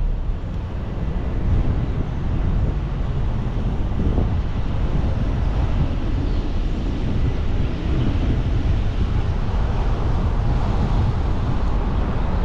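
Wind rushing over the microphone together with the low road rumble of a car driving at speed, a steady noise with no engine note standing out.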